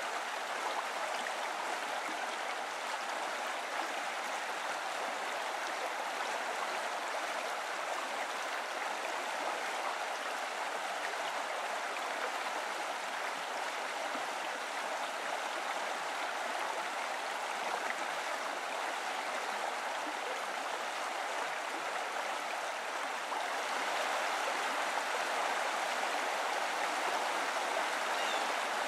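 Flowing stream water rushing steadily, a little louder from about 24 seconds in.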